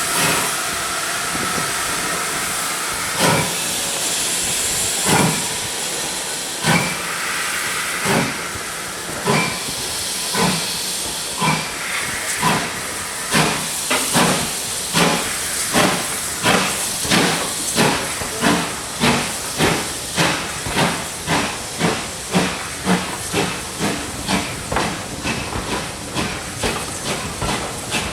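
Steam locomotive starting away with a hiss of escaping steam, its exhaust beats beginning slowly and quickening steadily to about two a second as the train gathers speed.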